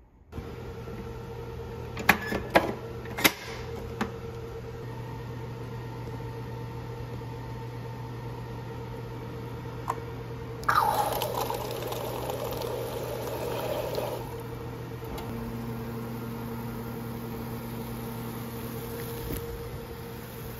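Soda fountain dispenser pouring carbonated melon soda into a cup: a sudden hiss of liquid about halfway through that lasts about three seconds. A few sharp clicks and knocks come earlier, over a steady low hum.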